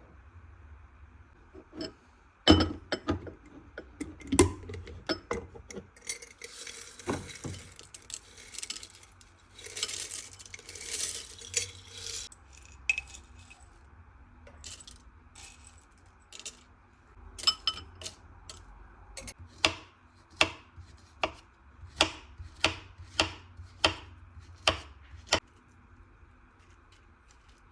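Kitchen sounds of a meal being prepared: dishes and utensils clinking and knocking. A stretch of hissing noise about a quarter of the way in, then a run of sharp taps about two a second near the end.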